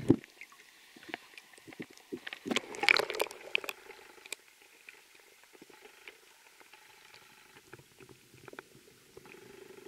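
Muffled stream water heard through an underwater camera housing: a thump at the very start, a burst of crackling and clicking about two and a half to three and a half seconds in, then faint scattered ticks.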